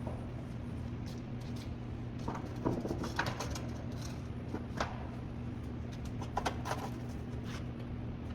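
Scattered metallic clicks and knocks of hand tools working on bolts, over a steady low hum.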